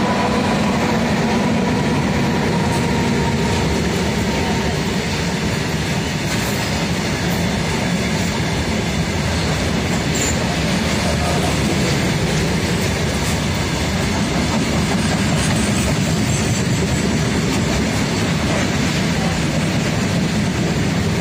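A long Indian Railways freight train of covered boxcars passing close by, headed by two electric locomotives: a steady, loud rumble of wheels and wagons on the rails. A faint steady tone fades out over the first few seconds.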